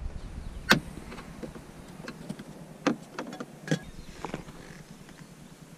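Several sharp plastic clicks and snaps as a 2002 Subaru Outback's plastic dome light is pried out of the headliner with a thin flat tool. The loudest click comes about a second in, with others near three and four seconds.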